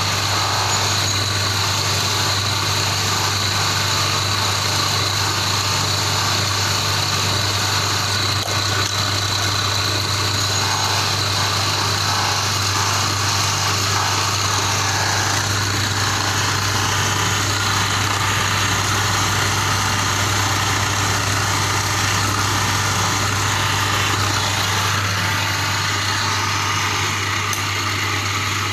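Belt-driven stone-polishing spindle running steadily with a constant motor hum, a turquoise stone held against its polishing wheel for the finishing polish.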